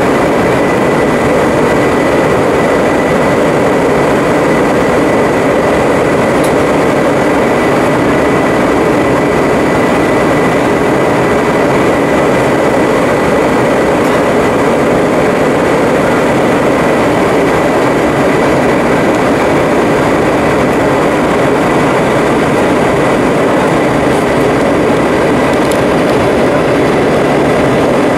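Steady cabin noise of an Airbus A320 in flight, heard at a window seat beside the wing: an even rush of airflow and jet-engine noise with a thin steady whine above it.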